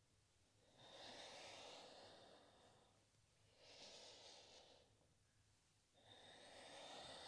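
A woman's slow, faint breaths, three of them, each lasting a second or two with quiet gaps between. The breathing is paced in and out with a yoga movement.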